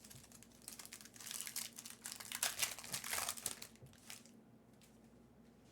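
Foil trading-card pack being torn open and its wrapper crinkled, a dense crackle that stops about four seconds in.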